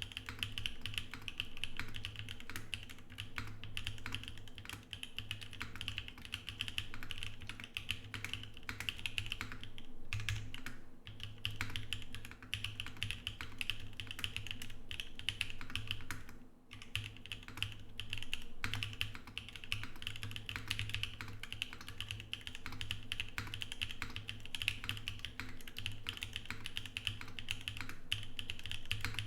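Continuous typing on an Emery 65 mechanical keyboard with lubed JWK Prevail Nebula switches, an XPC plate and GMK Maestro keycaps: a dense, quick run of keystrokes, with short pauses about ten seconds in and again around seventeen seconds.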